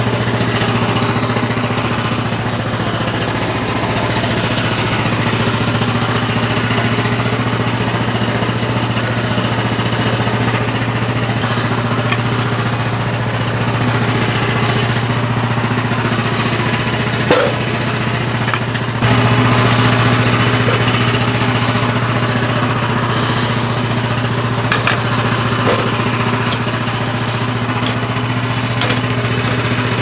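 Small gasoline engine of a Frontier OS23 band sawmill idling steadily, with a single knock a little past halfway; the engine gets louder a couple of seconds later.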